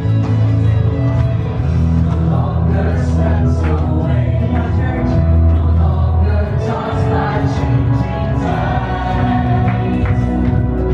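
Contemporary Christian worship song: a group of singers with a band, with a steady bass line under the voices.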